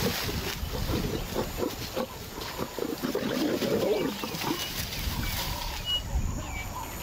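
Lions growling and snarling, the loudest snarl coming from the lioness about three to four seconds in.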